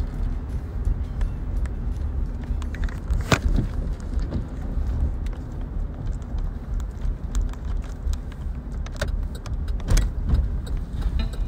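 Steady low rumble inside a car's cabin on the road, with scattered light rattles and clicks, the sharpest one about three seconds in.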